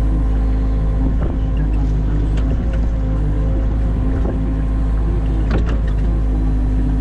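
New Holland Kobelco E50.2 mini excavator's diesel engine running steadily under digging work, with a few sharp knocks, the loudest about five and a half seconds in.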